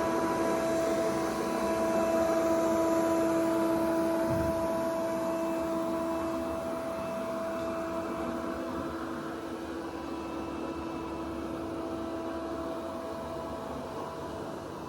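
Robot vacuum cleaner running: a steady motor whine with a few fixed tones over a whooshing suction noise, slowly getting quieter after the first few seconds. There is one soft low thump about four and a half seconds in.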